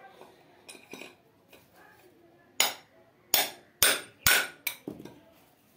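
A hammer striking metal: five sharp knocks about half a second apart, starting about two and a half seconds in, the last one lighter.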